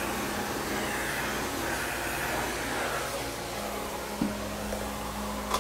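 Miele Compact C2 canister vacuum cleaner running steadily, a continuous motor whir and airflow hiss with a low hum. There is a brief knock about four seconds in and another near the end.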